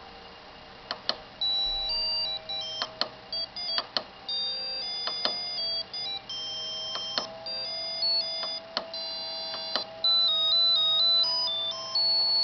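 A ringtone melody played by an ATmega8 microcontroller from an RTTTL ringtone file: one high-pitched beeping note at a time, with short clicks between some notes. The tune starts about a second in.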